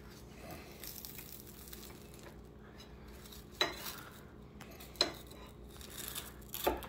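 Chef's knife sawing through a toasted grilled cheese sandwich on a plate: the crisp crust scrapes under the blade, and the knife clinks sharply against the plate three times in the second half.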